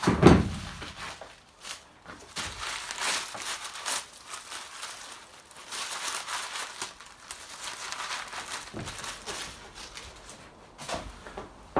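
Broom sweeping grit and debris across a bare metal van floor: repeated scraping strokes, roughly one a second, with a low thump just after the start.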